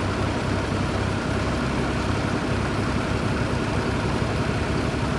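Tractor engine running steadily, with a heavy low rumble, as used for hay baling.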